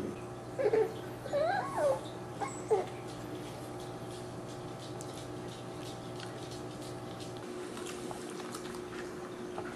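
Dachshund puppies play-fighting, giving a few short high yips and whines that rise and fall in pitch in the first three seconds, then only faint scuffling over a steady low hum.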